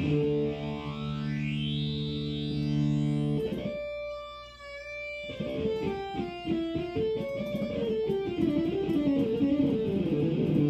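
Distorted synth lead played on a keyboard: a sawtooth patch from the Pigments synth run through an AmpliTube guitar-amp model, sounding like an overdriven electric guitar. A held chord whose filter sweeps upward, then a single high held note with vibrato, then a fast run of notes, and a fresh upward sweep near the end.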